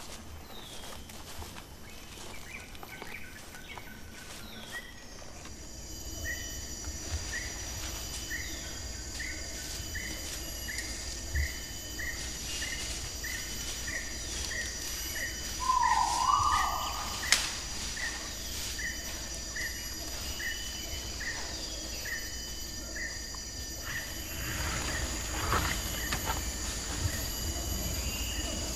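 Tropical rainforest ambience: insects drone steadily in high tones while a bird repeats a short chirp a bit more than once a second. One louder call comes about halfway through, and there is brief rustling of foliage near the end.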